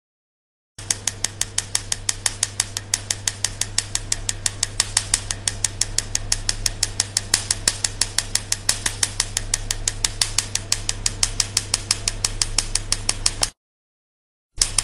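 Tattoo-removal laser firing a rapid, even train of sharp snapping clicks, about six a second, over a steady low hum. The clicking starts about a second in and stops abruptly a little before the end.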